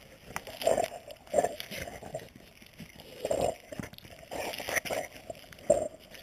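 A Boxer dog biting and mouthing a lemon, heard as several short, irregular bursts of sound.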